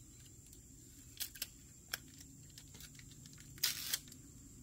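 Light clicks and taps of tire plug kit tools being handled, with one short, louder rustling burst near the end.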